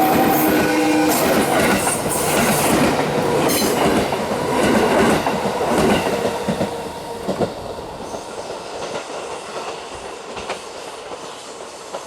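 Six-car 221 series electric train passing, its wheels clattering over rail joints. It is loudest for the first six or seven seconds, then fades steadily as it moves away.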